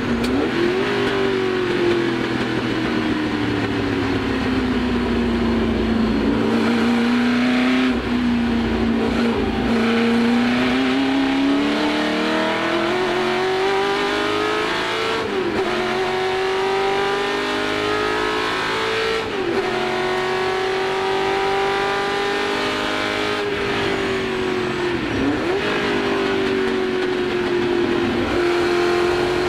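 Ford GT40 Mk1's small-block V8 racing engine heard from inside the cockpit at speed on track. Its note falls over the first few seconds as the car slows, holds low for a few seconds, then climbs under acceleration and stays high, with several brief dips in pitch.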